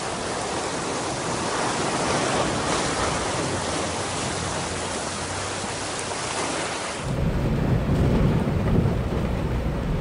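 Heavy rain and rushing floodwater heard from inside a vehicle: a steady, even hiss, then about seven seconds in a louder, deeper rumble of water.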